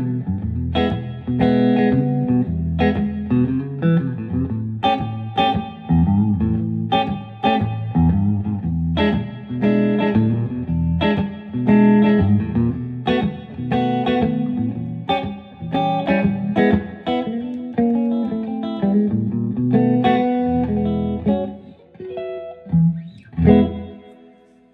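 Electric guitar, a Telecaster, played through a 1963 Standel 32J12T hybrid amp (germanium-transistor preamp, two 7591 power tubes, 12-inch Jensen speaker): a continuous run of picked single notes and chords, thinning to a few last notes near the end.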